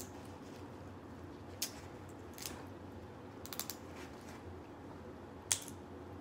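Shellfish shells being peeled and cracked by hand, giving a handful of sharp, crisp clicks and crackles. There is a quick cluster about halfway through and the loudest snap comes near the end.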